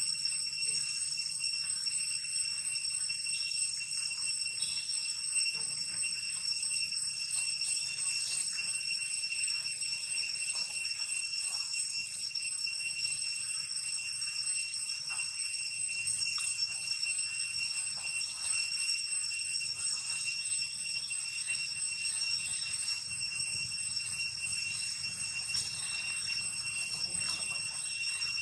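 A steady, high-pitched drone held on one pitch, with fainter higher overtones and faint distant voices underneath.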